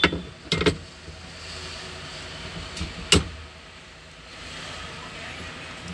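Clicks and knocks of a Maruti Suzuki 800 steering wheel being fitted by hand onto its steering column: a few short clicks in the first second, then a single sharp knock about three seconds in, over steady background noise.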